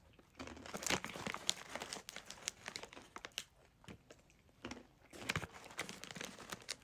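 Snack packet crinkling and rustling as it is handled, in a run of irregular crackles with a few louder ones around the middle and near the end.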